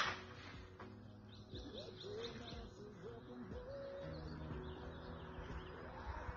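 Birds calling: a quick run of short high chirps, about four a second, and a low cooing like a dove's.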